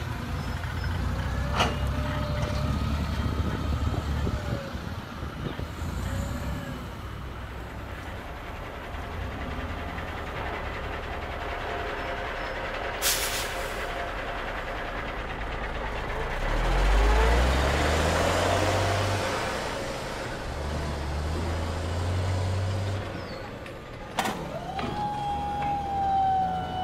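RC model trucks' diesel engine sound: a low rumble that climbs in pitch in steps twice, like revving up through the gears. A short air-brake hiss comes about halfway through, and a click near the end is followed by a steady tone.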